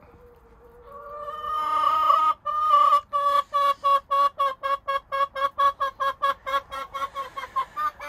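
Chicken cackling loudly: a long drawn squawk, then a fast run of repeated clucks, about four or five a second.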